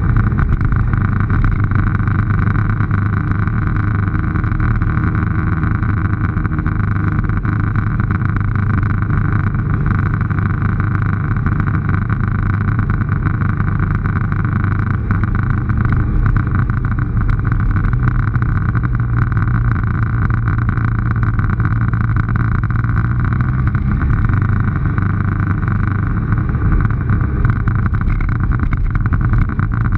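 Motorcycle engine running at a steady, easy cruising speed through town, a constant low hum under a steady rush of wind and road noise at the camera.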